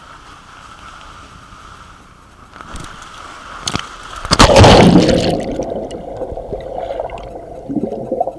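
Water-slide tube ride: a steady rush of water as the tube slides down the flume, a few knocks, then a loud splash as it shoots into the pool about four and a half seconds in. After that the sound turns muffled and bubbling, gurgling under the water.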